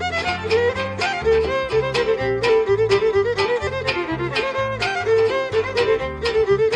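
Instrumental dance music from a fiddle-led string trio. A violin plays a quick melody over steadily strummed chords, about four strokes a second, and a bass line.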